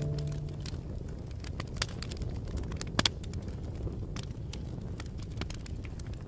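Wood fire crackling in a fireplace: irregular sharp pops and snaps over a low, steady rush of the burning logs.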